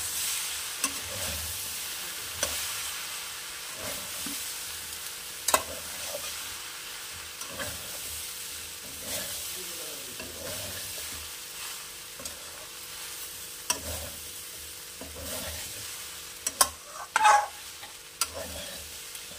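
Metal spatula scraping and clinking against a metal kadai as vegetables are stir-fried, over a steady sizzle. The strokes come about every second or two, with a few sharper clanks, the loudest near the end.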